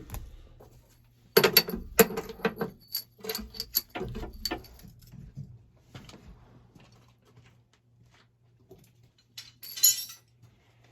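Loose junk being handled and cleared out of a tractor cab: a flurry of clattering, clinking knocks from hard objects for a few seconds, then a few scattered taps and a brief rustle near the end.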